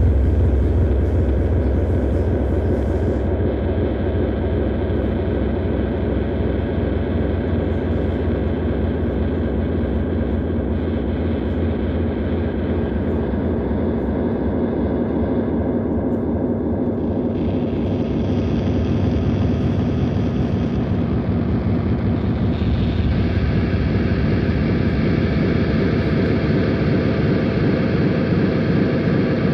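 Harsh noise-drone music: a dense, continuous, rumbling drone heavy in the bass, with a gritty, engine-like texture. A brighter hissing layer rises over it a little past halfway.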